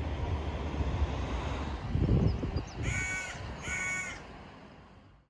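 A bird gives two short harsh calls, each about half a second long, over a steady low outdoor rumble. A dull thump comes shortly before the calls, and the ambience fades out near the end.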